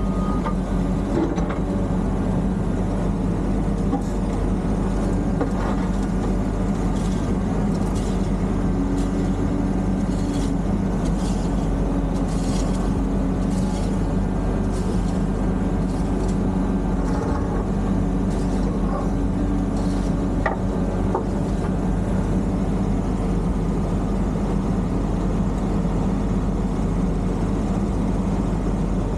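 Motor vehicle engine running steadily, a low even hum, with faint light clicks or rattles between about 7 and 16 seconds in.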